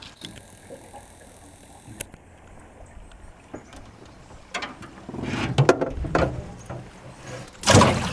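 Irregular knocks and rattles of fishing gear being handled in a small boat, sparse at first and busier from about halfway, with the loudest clatter near the end.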